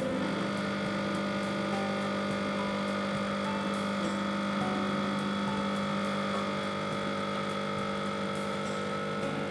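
Espresso machine pump running with a steady mechanical hum, switched on abruptly just before, as water is forced against a blind basket in a backflush.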